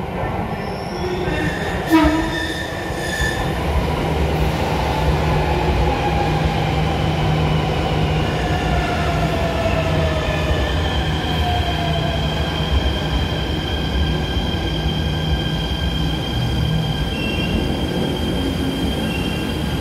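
MRT Jakarta train's IGBT-VVVF inverter and traction motors whining as it brakes into a station, the whine falling slowly in pitch as the train slows, over a steady rumble of wheels on rail. A short loud sound stands out about two seconds in.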